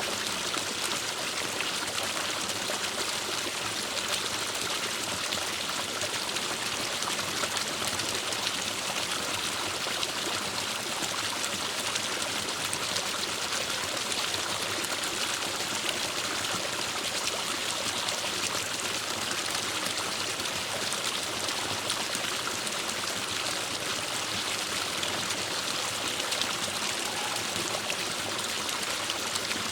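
Forest stream flowing steadily over rocks, a constant rushing and trickling of water.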